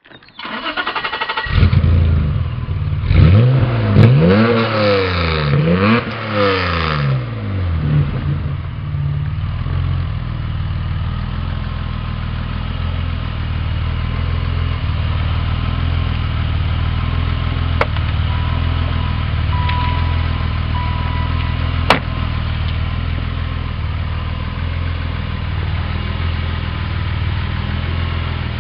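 BMW 635CSi Alpina E24's straight-six engine starting, revved up and down several times over the first several seconds, then settling into a steady idle.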